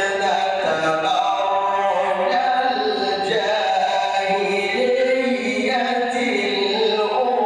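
A man reciting the Quran in melodic tajweed style, holding long notes that slide between pitches.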